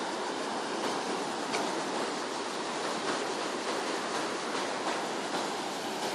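Shallow mountain river rushing steadily down a natural smooth-rock waterslide, a constant, even wash of white water.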